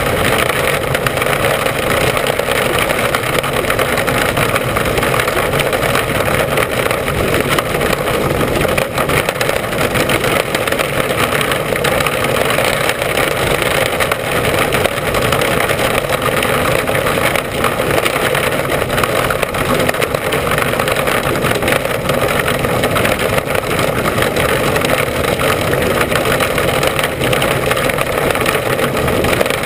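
Mini Sprint race car's engine running hard at racing speed, heard from an onboard camera mounted on the car: a loud, steady mechanical din with no let-up.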